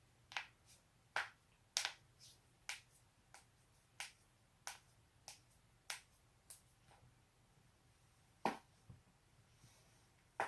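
Joints being cracked: a steady run of about a dozen sharp pops, one every half second or so, then a pause and a single louder crack near the end.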